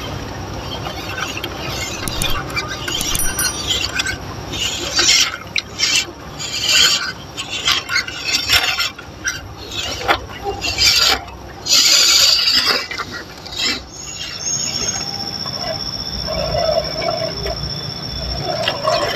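MN99s 1/12-scale RC crawler driving through a shallow stream: its small electric motor and gears whining under water splashing around the wheels, with a run of louder splashy bursts in the middle. A steady high tone sets in near the end.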